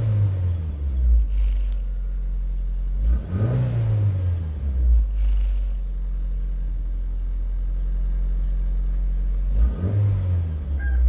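Toyota Corolla engine idling and revved briefly three times, its pitch rising and falling each time: at the start, about three and a half seconds in, and near the end. The engine is running after a replacement surplus ECU cured its crank-no-start.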